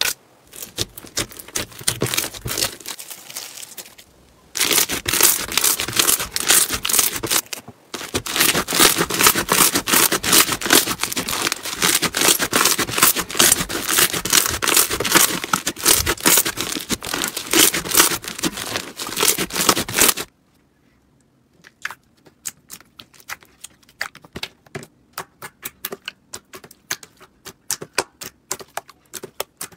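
Hands squeezing and kneading slime. For most of the stretch, bead-filled crunchy slime gives dense, continuous crackling. After a sudden drop, clear slime pressed by the fingers gives sparser clicks and pops.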